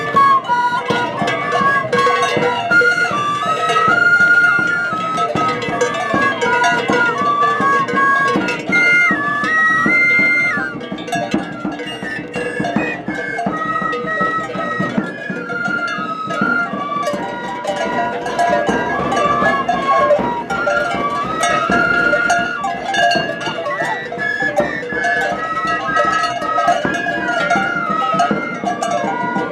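An ensemble of Andean cane flutes playing a melody together in stepping, held notes, with a steady beat of strikes underneath.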